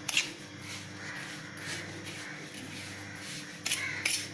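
A hand mixing roasted rice powder, grated coconut and grated jaggery on a steel plate, making soft scratchy rustling and scraping. It is loudest briefly at the start and again near the end, over a faint steady hum.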